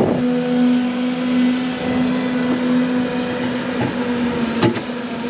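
Steady mechanical drone with a constant low hum, running machinery. A short sharp click sounds near the end.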